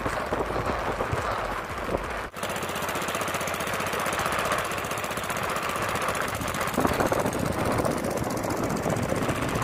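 Small wooden boat's engine running steadily with a fast, even pulsing. It drops out for an instant about two seconds in, then carries on.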